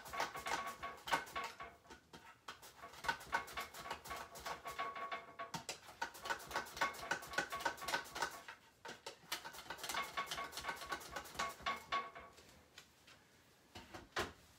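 Zucchini being sliced on a mandoline: quick scraping strokes across the blade in runs of two or three seconds with short pauses between. The slicing stops about twelve seconds in.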